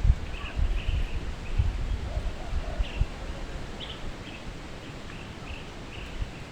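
Small birds chirping in short, scattered calls, over low gusty rumbling from wind on the microphone.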